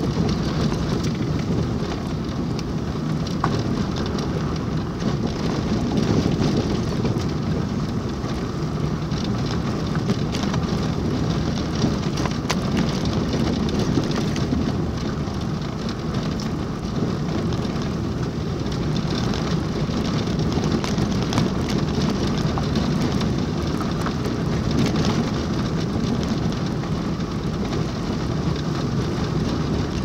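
Steady road noise heard inside a car driving on an unpaved dirt road: a low rumble from the tyres and engine, with many small rattles and ticks from the rough surface.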